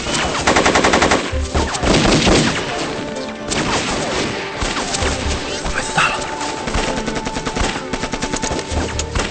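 Battle gunfire: rapid automatic fire, with a fast, even burst in the first second followed by further bursts and single shots.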